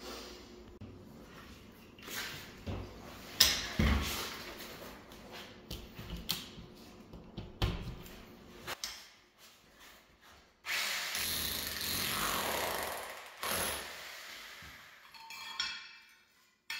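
A cracked ceramic floor tile being broken out with power tools: irregular scraping and several sharp knocks, then about three seconds of steady rough noise from a rotary hammer's chisel past the middle. Near the end the loose tile pieces clink as they are lifted.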